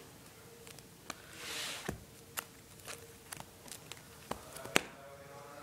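Plastic trading-card binder pages being handled and turned: soft rustling swishes with scattered light clicks and taps, the sharpest a little under five seconds in.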